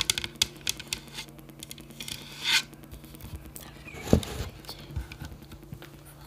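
Fingernails tapping and scratching on the plastic casings of a pair of small desktop computer speakers: scattered light taps, a brief scratching sweep about two and a half seconds in, and a heavier knock a little after four seconds.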